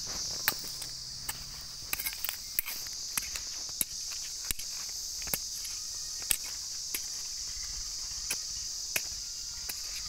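Steady high-pitched insect drone, like crickets, with irregular sharp taps, about one or two a second, of a small wooden-handled hand tool striking hard, dry soil.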